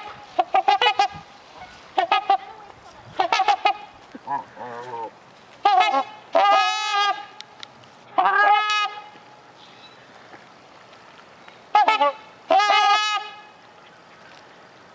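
Two trumpeter swans honking in clusters of repeated calls, some short and some drawn out, with a pause between bouts.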